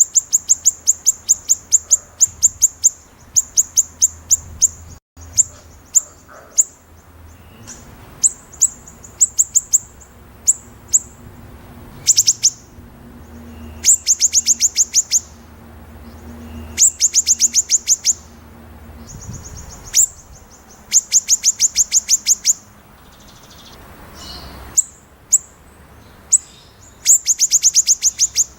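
White-rumped shama singing in rapid runs of sharp, high repeated notes, each run a second or two long, with single sharp notes and short pauses between them.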